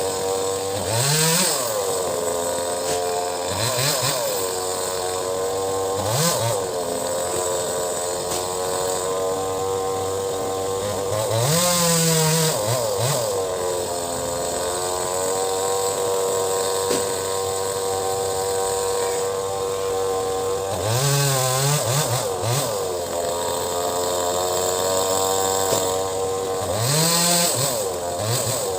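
Two-stroke chainsaw engine running steadily at a fast idle. It is revved up and back down six times.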